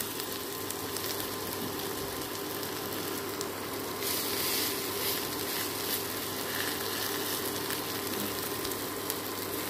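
Saag pakora batter of chopped greens and gram flour sizzling steadily as it fries in hot oil in a kadhai, the sizzle swelling a little about four seconds in as another handful goes into the oil.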